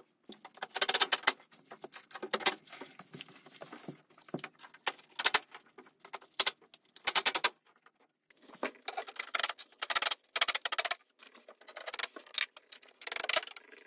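Cordless drill driving screws tight through a steel cabinet support rail into a concrete wall, in a series of short bursts of rapid clicking with pauses between as it moves from screw to screw.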